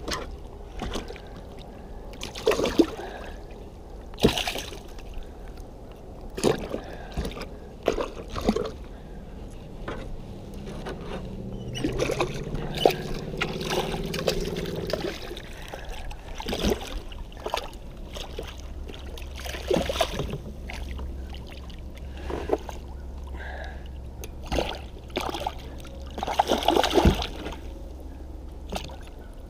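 A hooked smallmouth bass thrashing and splashing at the surface right beside a plastic kayak hull, with irregular sharp splashes and water sloshing against the boat. The biggest burst of splashing comes near the end.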